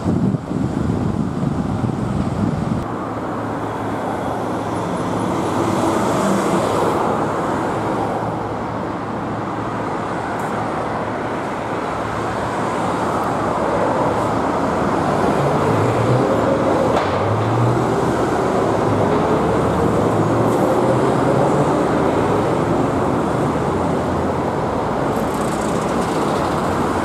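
Steady road traffic noise: a continuous hum of vehicle engines and tyres on a city street, swelling and easing slowly.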